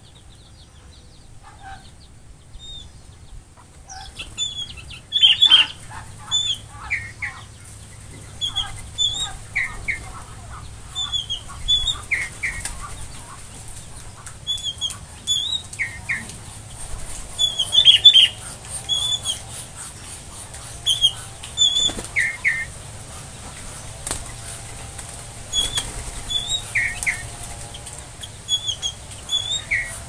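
Small aviary birds calling with short, repeated chirps, a high falling note and a lower one, starting about four seconds in and carrying on every second or so. Louder bursts of wing flapping and chirping break in near five seconds and again past the middle.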